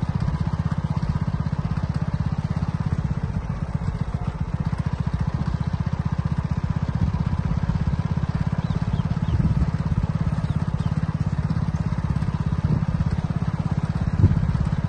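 Motorcycle engine running steadily at low speed, a fast, even low-pitched pulsing, with a brief knock near the end.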